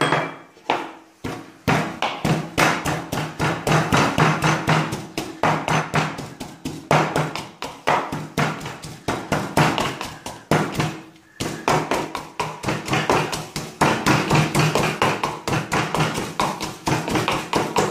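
Wooden pestle pounding garlic, parsley and salt in a wooden mortar: quick, steady knocks, about four or five a second, with a short break about eleven seconds in.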